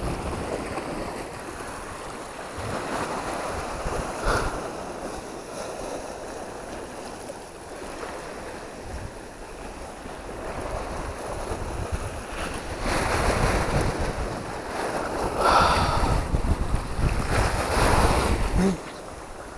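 Small sea waves washing over a low rocky shore, with wind buffeting the microphone; the wind rumble grows louder for several seconds near the end, then drops off.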